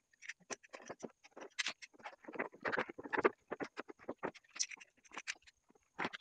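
A cardboard toy box with a clear plastic window being handled and opened: irregular light taps, scrapes and rustles, busiest about halfway through.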